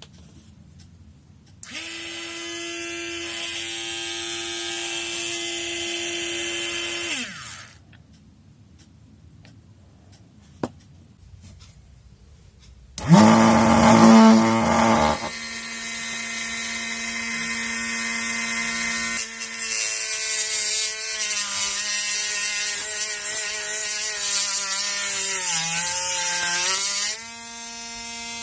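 Small brushed DC motor from a used RC car, fitted as a mini sander, switched on and running with a steady whine for about five seconds, then winding down. After a pause it starts again and runs on, its pitch dipping and wavering with a rasping hiss, as when the sanding disc is pressed against work, then steadies near the end.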